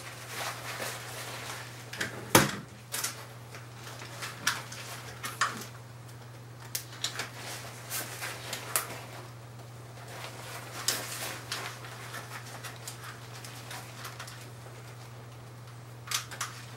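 Rustling and handling of a folded SMDV softbox's fabric, with scattered light clicks of its rods and a louder knock about two seconds in. A steady low hum runs underneath.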